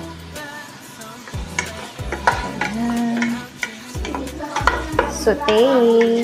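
Julienned yellow sweet potato sizzling as it sautés in a stainless steel pot, with a spatula stirring it and clicking and scraping against the pot.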